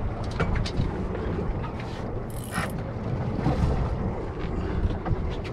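Wind buffeting the microphone over water lapping at a fishing boat's hull, with scattered small knocks and a brief high hiss about two seconds in.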